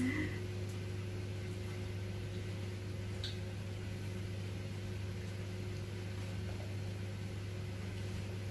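Steady low hum with faint hiss, level throughout, with a faint click about three seconds in.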